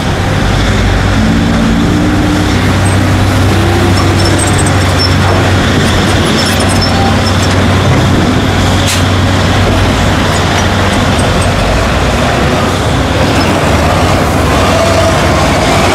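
Heavy diesel engines of crawler excavators and a ten-wheel dump truck running at work, a steady low drone.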